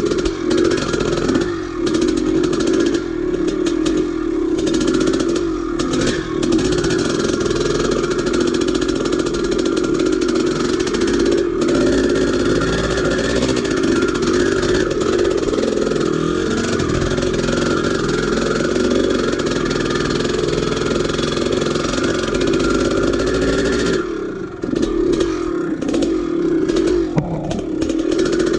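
1983 Maico 490's single-cylinder two-stroke engine running under load on a trail ride, its pitch rising and falling with the throttle. Near the end it eases off briefly, then picks up again.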